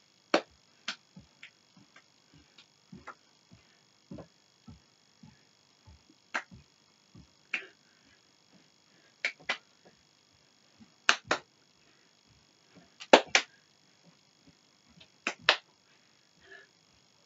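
Hand claps in quick pairs, scattered through the dance routine, with soft thuds of feet stepping on the floor between them.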